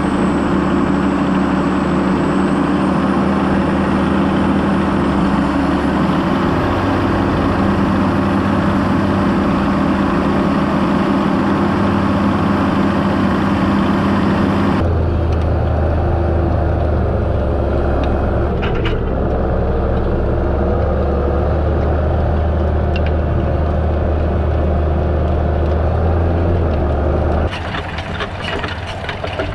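John Deere 6930 tractor's six-cylinder diesel engine running steadily under load while pulling a seedbed cultivator. Near the end the engine becomes quieter and a rattling clatter from the cultivator's steel rollers working the soil comes in.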